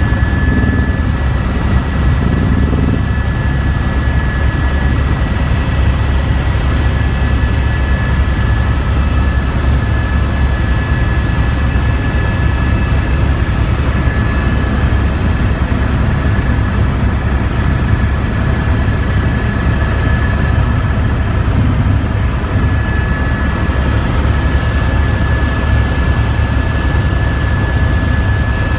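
Helicopter in flight, its engine and rotor running steadily: a constant low drone with a steady high whine over it.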